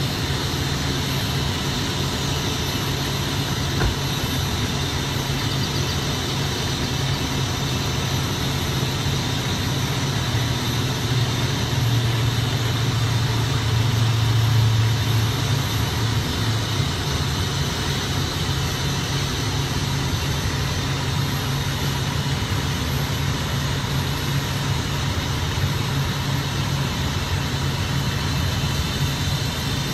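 Steady low hum of an idling engine, swelling slightly about twelve seconds in and settling back by sixteen.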